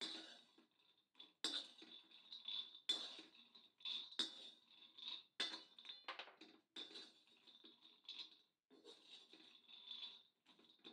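Perforated metal spatula scraping across a dark metal pan and turning dry-roasting peanuts, the nuts rattling and clattering against the pan. The strokes are irregular, about one a second.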